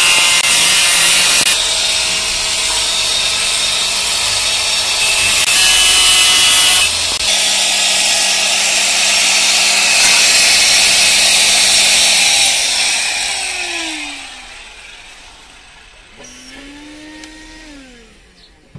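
Handheld electric angle grinder cutting a steel mounting plate, a loud grinding screech that shifts as the cut goes on. About twelve seconds in the grinder is let off and its motor whines down.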